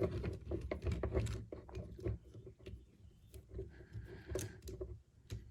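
Plastic parts of a Transformers Masterpiece figure being handled and repositioned by hand: scattered small clicks and knocks over soft handling noise.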